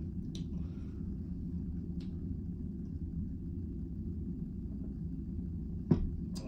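Steady low rumble of a cruise ship cabin, with a few faint clicks and one sharp knock near the end as a soda can is set down on the tray.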